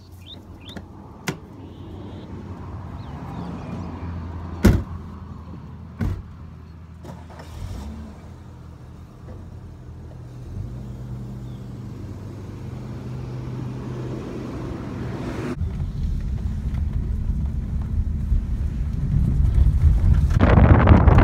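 Car doors shutting with a few sharp knocks, then a car engine running steadily. About sixteen seconds in, this gives way to the louder rumble of a car driving along a rough dirt track, heard from inside the cabin and growing louder.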